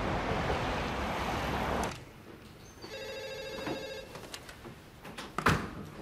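A landline telephone rings once, a single electronic ring of about a second, roughly three seconds in: a call coming through to the hospital nurses' post. Before it a steady rushing noise cuts off after about two seconds, and a sharp knock sounds near the end.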